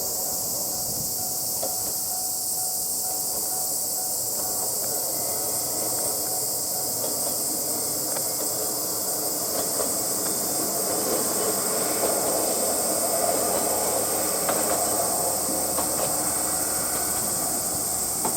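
Akechi Railway diesel railcar running on the line. Its rumble grows louder about halfway through, with scattered wheel clicks, over a steady high hiss.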